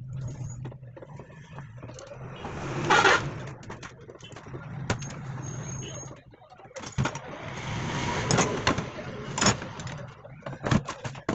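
Metal knocks and clinks as the parts of a starter motor are handled and fitted together on a workbench: a noisy scrape about three seconds in, then several sharp knocks in the second half, over a steady low hum.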